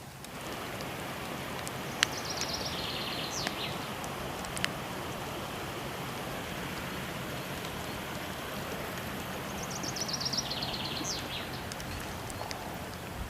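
Steady rush of waterfall water mixed with the crackle of a burning fire, with a couple of sharp pops, the loudest about two seconds in. Twice a small bird sings a quick trill of high notes that step downward.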